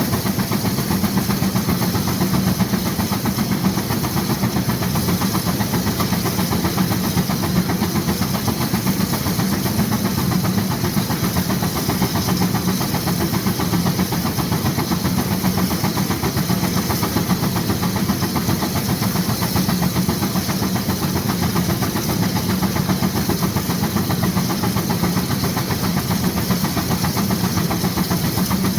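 1916 Case 40 HP steam traction engine working hard under load on a Baker fan, its exhaust beating fast and steady from the stack, with a hiss of steam.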